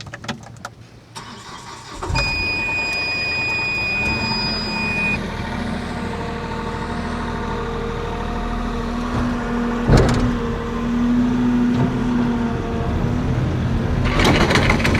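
A vehicle engine starts about two seconds in and settles into a steady run. A high steady beep sounds for about three seconds just after it starts, and there is a single sharp knock near the ten-second mark.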